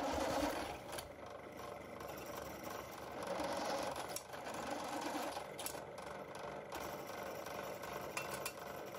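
Bench pillar drill running, its step drill bit cutting holes in a thin stainless steel cover plate: a steady machine hum with the bit scraping as it feeds in, louder near the start and again about three seconds in.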